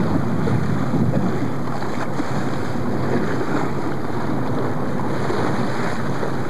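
Steady wind noise on the microphone over water rushing and splashing against a sportfishing boat's hull, where a hooked striped marlin is held alongside.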